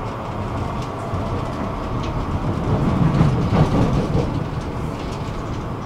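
Tram running on its rails, heard from inside the car: a steady rumble of wheels and motor with a few light clicks. It grows louder for about a second, around three seconds in.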